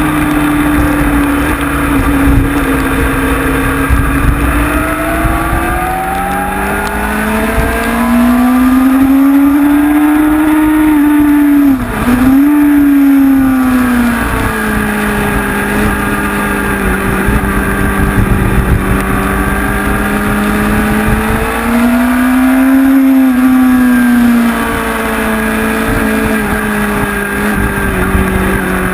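Onboard sound of a Honda CBR sport motorcycle's inline four-cylinder engine at track speed. The pitch climbs and falls as the rider opens and closes the throttle, with a brief sharp drop about twelve seconds in, like a gear change, and another rise and fall near the end.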